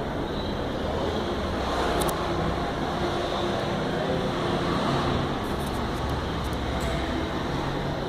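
Steady low rumble of road traffic, with a few faint clicks.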